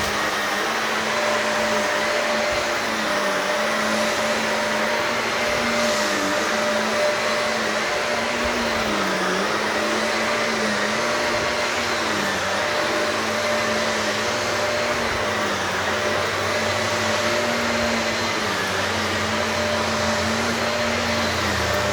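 Shark upright vacuum cleaner running on carpet, its motor note dipping slightly about every two seconds as it is pushed back and forth.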